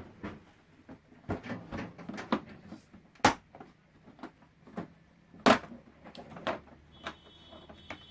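Irregular clicks and knocks of a flat-screen TV being taken apart by hand: screws and the plastic back cover being handled, with two sharper knocks, about three and five and a half seconds in.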